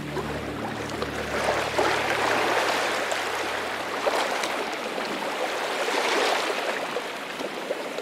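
Small waves breaking and washing up a sandy beach: a steady hiss of surf that swells and eases every second or two.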